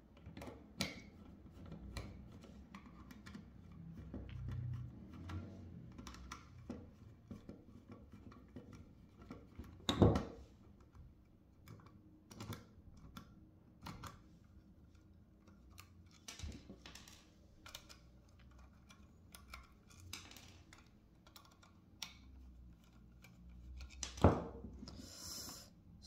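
Scattered clicks, light knocks and scrapes of hands working a small screwdriver and a finned aluminium Helium miner case on a wooden tabletop, taking out the front screws and working the front cover loose. Two sharper knocks stand out, about ten seconds in and near the end, followed by a brief hiss.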